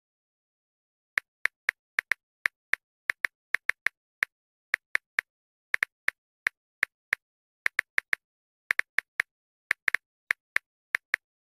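Touchscreen phone keyboard clicking with each key tap as a message is typed: short, sharp, identical clicks at an uneven typing pace, about three a second after a pause of about a second at the start.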